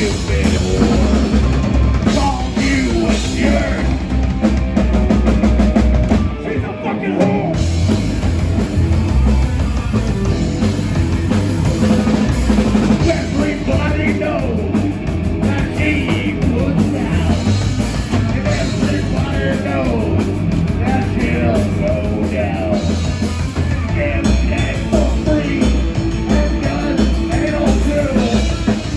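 A live psychobilly band playing a fast rock song: drum kit, bass and electric guitar, with a brief drop in the low end about six seconds in.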